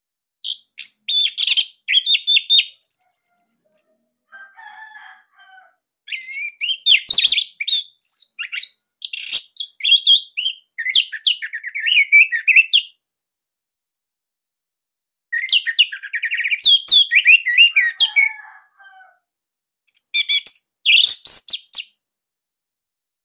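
Orange-headed thrush (anis merah) singing a dense, loud song in phrases of rapid, high, varied whistled notes, with pauses of one to two seconds between phrases. A few softer, lower notes fall in two of the pauses.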